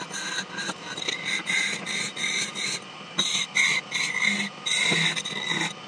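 Chisel cutting the spinning wood of a goblet blank on a wood lathe: a high scraping squeal that comes in short bursts with brief gaps as the tool touches and lifts.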